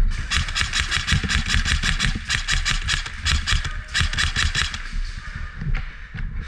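Airsoft rifle firing full-auto in rapid rattling bursts: a long burst of about two seconds, a second of about a second and a half, and a short one around four seconds in.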